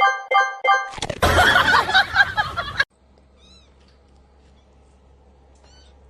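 A short tinkling tune of evenly repeated notes, then a cat's loud, harsh yowl lasting about two seconds that cuts off suddenly. After it there is a faint low hum with two brief high chirps.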